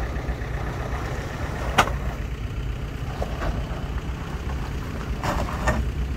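Off-road 4x4's engine running at low revs, a steady low rumble, with a sharp click about two seconds in and a few lighter knocks near the end.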